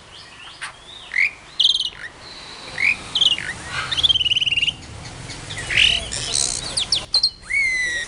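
Several kinds of cage birds in a large colony aviary calling over one another: short chirps, quick trills and whistles, with a drawn-out whistle near the end.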